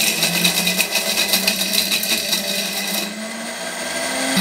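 Heavy-duty electric mixer-grinder running with a steel jar full of hard dry dates, fox nuts, roasted chickpeas, almonds and whole spices: a steady motor hum under a dense rattling crackle of pieces being smashed against the jar. The motor's pitch creeps up as the charge breaks down, and the rattle thins about three seconds in as it turns to coarse powder.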